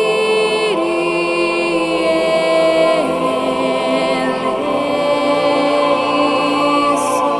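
Background music: slow, chant-like choral singing in long held notes that shift pitch every second or few.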